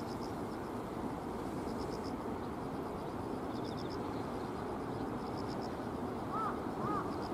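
Steady outdoor background of distant road traffic, with faint high chirps now and then. Near the end a bird starts calling in short arched notes, about two a second.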